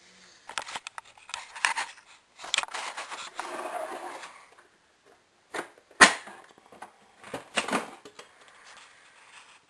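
Intermittent clattering and scraping of objects being handled, with a sharp knock about six seconds in.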